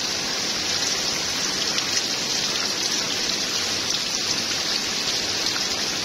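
Heavy rain falling steadily on waterlogged grass and puddles, an even hiss of drops.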